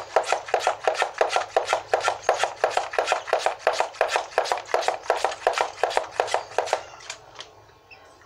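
Hand pump of a bird-bathing pressure sprayer on a water bottle being worked quickly, about four strokes a second, pressurising the bottle; the pumping stops about seven seconds in.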